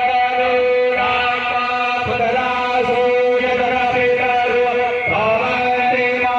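Hindu mantra chanting in long, held droning notes, with the pitch sliding at a few points.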